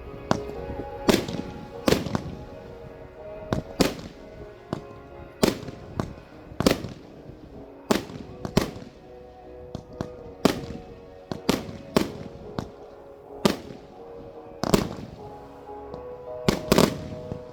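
Fireworks display: aerial shells bursting in a steady run of sharp bangs, roughly one a second, some trailing off in echo.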